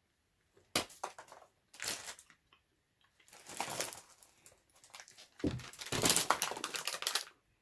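Plastic sweets packet crinkling and rustling in several short bursts, the longest and loudest near the end.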